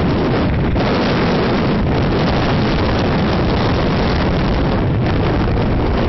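Strong typhoon wind blowing across the camera microphone: a loud, steady rush of noise.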